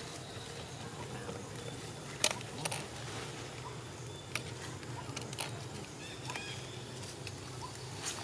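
Outdoor ambience: a steady low hum with scattered sharp clicks and snaps, and a brief faint high squeak about six and a half seconds in.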